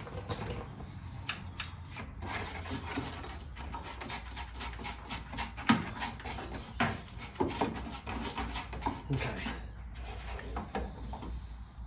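Long screwdriver scraping and chipping old caked mud out from behind a car's front wing, around the door hinge: a run of irregular scrapes and sharp clicks, with a couple of louder knocks about six and seven seconds in.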